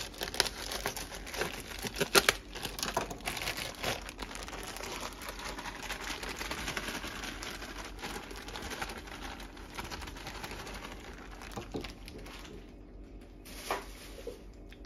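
Plastic or paper wrapping crinkling and rustling in gloved hands, a dense run of small crackles that dies down about twelve seconds in, with one short rustle near the end.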